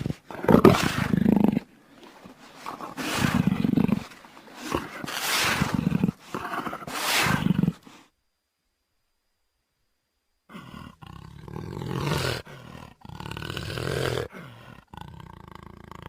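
Jaguar roaring calls: four loud, gruff calls about two seconds apart, then a sudden gap of dead silence, then a second recording with more, quieter calls.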